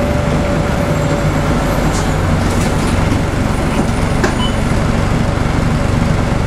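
Cabin noise of a Scania N113CRB non-air-conditioned city bus: its rear-mounted 11-litre six-cylinder diesel engine running steadily along with road noise, and a few light rattles from the bodywork.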